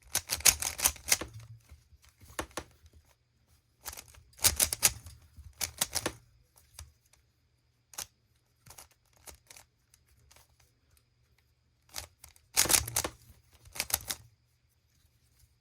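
Plastic Rubik's Cube being turned by hand: quick runs of layer turns that click and clatter, three main bursts of about a second each, with a few single clicks in the pauses between.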